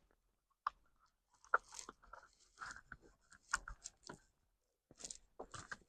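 Faint, scattered small clicks and scrapes, about a dozen spread over several seconds: hands working on a molded knife sheath while its top rivet is popped out.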